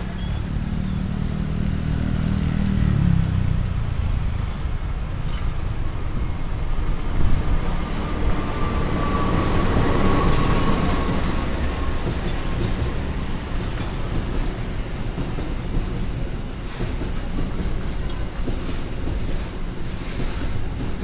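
Container freight train hauled by a diesel-electric locomotive passing close by. The locomotive's deep engine drone fades after the first few seconds, and a single high tone glides slightly down around the middle. Then the wagons rumble past, with faint clacks of wheels over the rail joints near the end.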